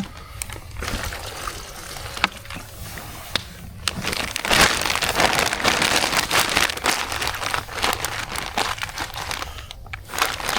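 Plastic bag crinkling and water sloshing as raw chicken wings are rinsed in it, getting busier and louder about four seconds in.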